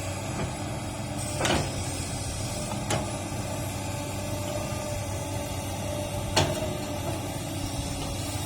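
Komatsu PC200-8 excavator's diesel engine running steadily, with three sharp knocks spread through it.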